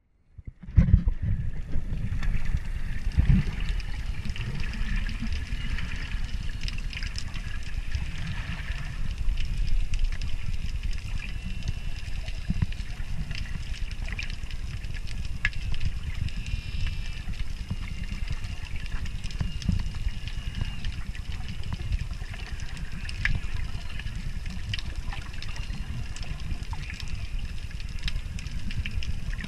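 Underwater sound recorded by a GoPro Hero5 beneath the sea surface: a steady, muffled low rumble of moving water with scattered faint clicks and crackles.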